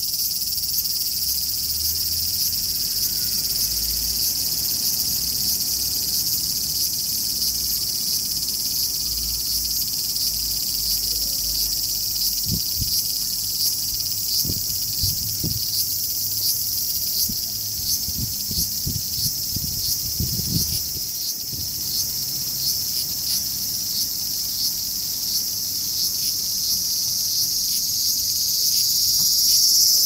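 Large brown cicada (aburazemi) singing a continuous high, sizzling buzz made of very rapid fine pulses. A few low thumps come in the middle.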